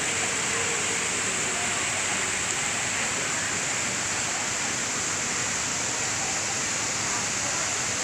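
Man-made waterfall pouring into an ornamental pond: a steady, unbroken rush of falling and splashing water.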